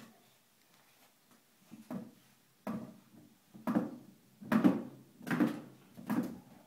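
Toy rocking horse being rocked, its rockers knocking on a hardwood floor in a steady rhythm of a little more than one knock a second, louder from about halfway in.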